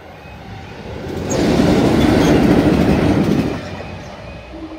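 Two Class 66 diesel locomotives running light past a level crossing, with EMD two-stroke V12 engines and wheels on rail. The noise swells about a second in, is loudest for about two seconds as they go by, then fades as they pull away.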